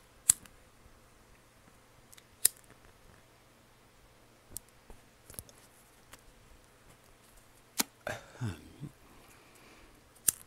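A handful of sharp clicks a few seconds apart, with a short breathy rush just after the third: a lighter being flicked and a cigarette drawn on.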